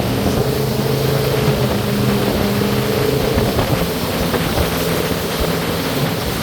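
Aluminium jet boat's engine running steadily under way, a droning hum over a steady rush of noise; its pitch rises a little about halfway through.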